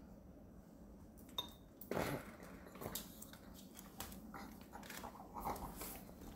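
Irregular clinks and crunches of a dog's food and bowl. A single click comes about a second in, and a run of short clicks and crunching starts about two seconds in.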